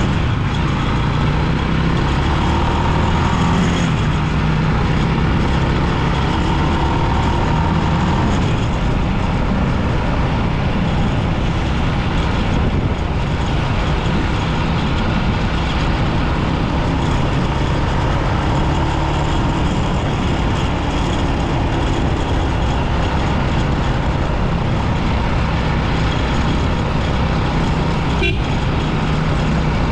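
Rusi 250 motorbike running at road speed, its engine note shifting slowly as it rides, under steady road and wind noise. A short sharp click sounds near the end.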